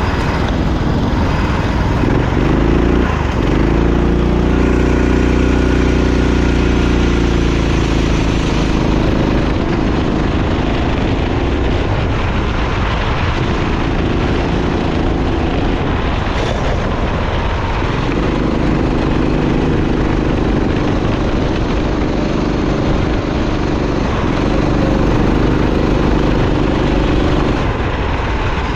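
Kart engine running hard around a track. Its pitch drops three times, at about 3 s, 17 s and near the end, then climbs again each time as the kart brakes and accelerates.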